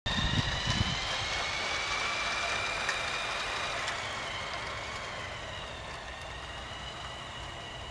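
Electric motor and gearing of a Playmobil G-scale toy train running along garden track: a steady high whine that grows fainter as the train moves away. A couple of low thumps in the first second and a few faint clicks.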